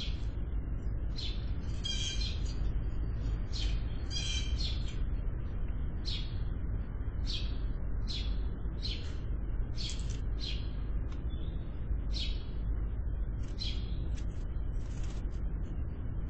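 Blue jays calling, a short call repeated about once a second, over a steady low rumble.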